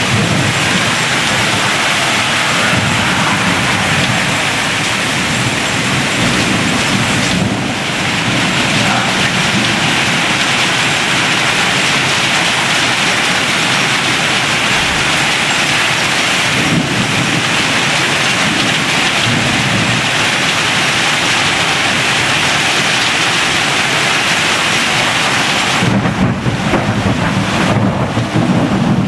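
Heavy rain and hail falling hard on a deck and metal patio furniture, a dense steady hiss. In the last few seconds wind gusts buffet the microphone.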